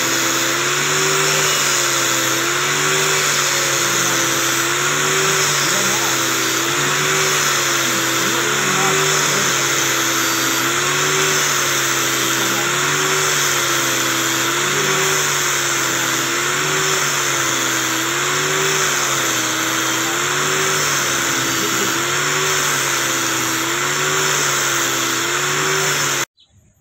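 Angle grinder running with a wire cup brush against the cast aluminium housing of an electric forge blower, scrubbing it clean: a steady whine with a slight rhythmic waver in pitch over a continuous rasping scrape. It cuts off suddenly just before the end.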